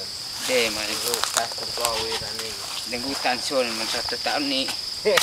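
Steady high drone of insects under people talking, with a few sharp clicks.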